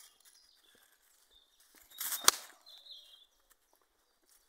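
Footsteps on dry leaf litter with faint scattered rustles, and one loud crunching rustle with a sharp snap about two seconds in. A small bird chirps briefly just after it.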